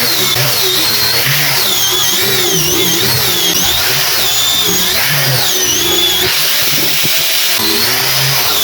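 Electric power sander running against a laminated wood cutting board, a steady hiss of sanding under a high motor whine that wavers up and down in pitch.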